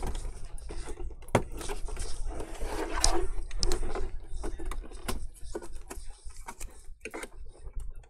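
Plastic clicks, taps and scraping as a metal pry tool and hands work the LCD screen and white plastic bezel of an HP all-in-one loose from its frame. There is a longer scraping rustle about two to three and a half seconds in, with scattered sharp clicks before and after it.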